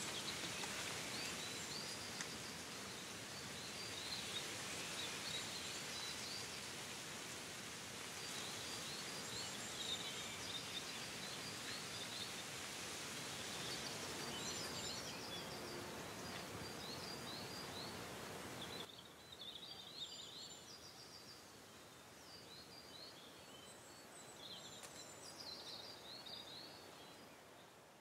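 Outdoor ambience of many small birds chirping and calling, with short repeated chirps over a steady hiss. The hiss drops away about two-thirds of the way through, leaving the birdsong on its own, and the sound fades out at the end.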